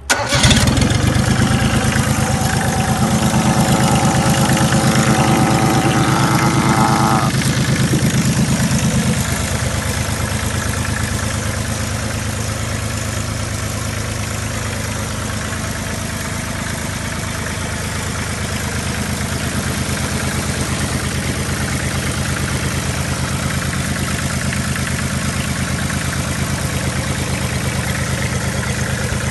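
Volvo Penta D1-20F three-cylinder marine diesel started from a remote start button. It catches at once and runs a little louder with a higher whine for the first several seconds, then settles to a steady idle about nine seconds in.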